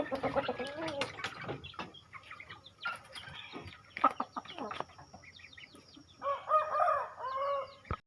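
Chickens clucking and calling, with a rooster crowing in two parts near the end. Scattered clicks, and a sharp knock about four seconds in.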